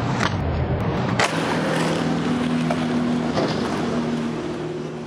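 Skateboard on concrete: two sharp clacks, about a quarter second and a second and a quarter in, over steady street traffic with a low engine hum. The sound fades out near the end.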